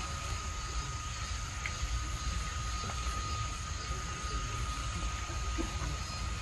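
Quiet outdoor ambience: a steady, high insect drone over a low rumble from a hushed crowd.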